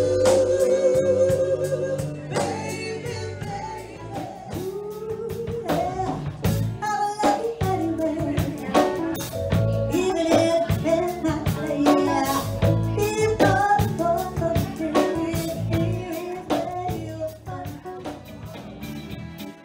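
Live band music: a woman singing over drums, electric guitar, bass and keyboards, opening on a long held note with vibrato.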